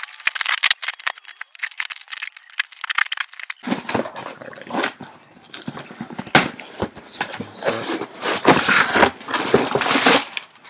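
A cardboard shipping box and its plastic packaging being opened and handled: a busy run of rustling, crinkling and sharp clicks and scrapes. It grows louder and fuller about three and a half seconds in.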